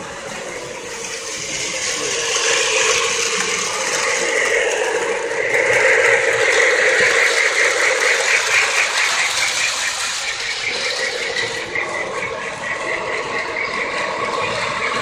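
Electric model trains running on metal track: a steady mechanical rattle and clatter of wheels and motors, growing louder as a diesel-style locomotive pulling passenger cars runs close by around the middle.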